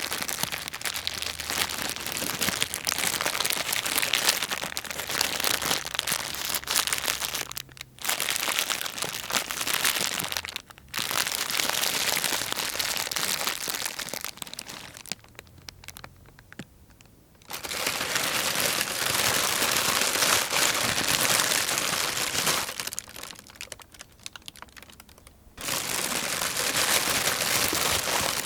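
Plastic sheeting being crinkled and crumpled by hand in several takes: a dense, crackly rustle. It breaks off briefly twice and pauses for a couple of seconds twice more.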